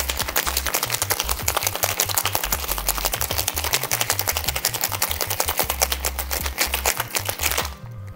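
Ice rattling rapidly inside a metal cocktail shaker in one long, hard shake that stops near the end, an extended shake to mix in the heavy cream thoroughly. Background music with a steady bass line plays under it.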